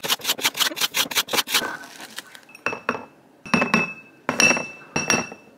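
A spoon scraping and chipping at a frozen dessert hard as a lump of ice: a quick run of scraping strokes, about seven a second, then several ringing clinks of the spoon against the dish.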